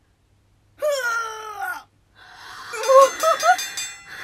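Women's overwhelmed fangirl reaction sounds: a falling, high-pitched wail about a second in, then breathless gasping with short squeaky cries.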